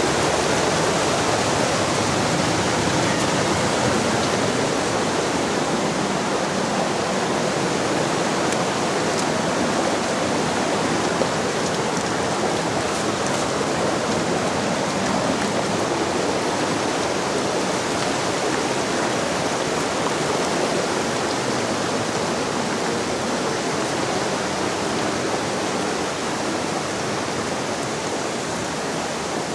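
Rushing water, a loud, steady, dense noise without breaks that eases slightly near the end.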